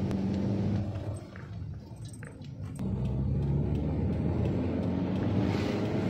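Car engine and road noise heard from inside the cabin while driving: a steady low hum that eases off about a second in and picks up again about three seconds in.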